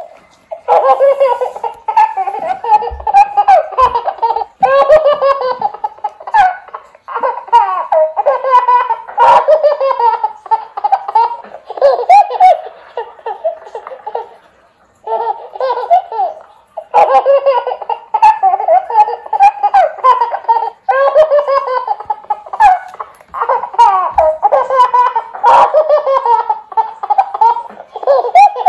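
Toy baby doll playing recorded baby laughter, giggling over and over in bouts with short breaks between them. The sound is thin, with no low end.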